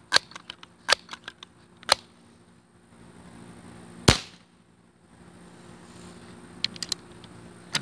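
A few light clicks come from handling the gun. About four seconds in, a Crosman 1377 multi-pump air pistol, pumped six times, fires a single sharp shot. A few small clicks follow near the end.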